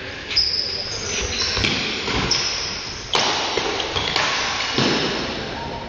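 Badminton rally: sharp racket hits on the shuttlecock with a few seconds between them, and short high sneaker squeaks on the court floor, echoing in a large hall.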